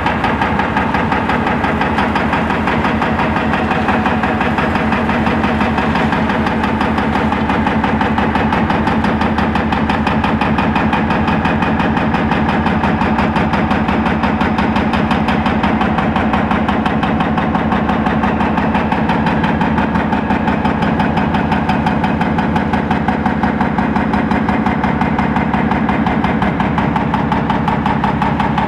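Diesel engine of an Etec 888 high-reach demolition excavator running steadily and evenly as the machine works.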